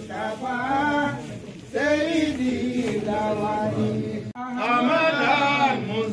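A man's voice in a melodic, chant-like delivery, held phrases of a second or two with short pauses between them, and a brief break about four seconds in.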